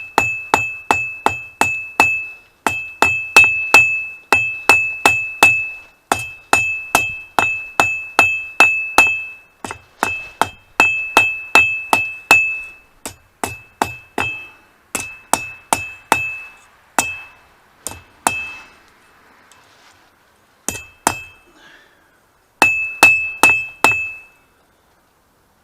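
Blacksmith's hammer striking hot mild steel on an anvil, drawing out a point: runs of quick blows, about three a second, each with a bright anvil ring, broken by short pauses and one longer break a little past the middle.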